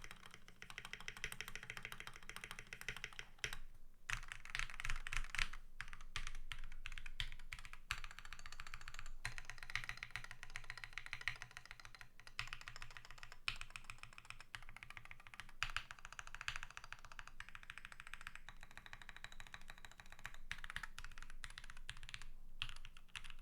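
Continuous fast typing on a custom 65% mechanical keyboard with lubed and filmed JWICK Black linear switches on a steel plate and Akko ASA-profile keycaps, pausing briefly about three and a half seconds in and again near the end.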